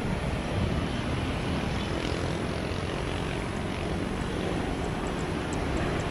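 Jet airliner on landing, a Boeing 737, its engines at low approach power as it flares over the runway: a steady wash of jet noise with no distinct events.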